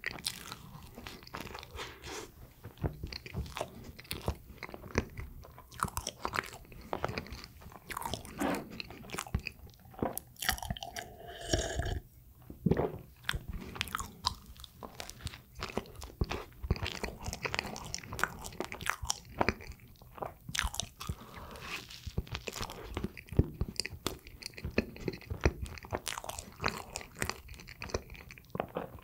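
Close-miked eating of a soft chocolate fresh-cream bread: bites and chewing, made of many short, sharp mouth sounds at an irregular pace.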